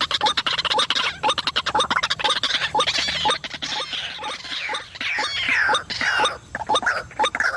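White-breasted waterhen calls: a fast run of sharp clicking notes, with falling, downward-sweeping calls in the middle.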